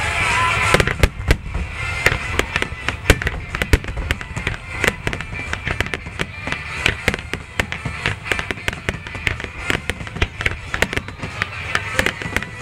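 Fireworks display: aerial shells bursting in a dense, irregular barrage of bangs and crackles, several a second, over a constant low rumble.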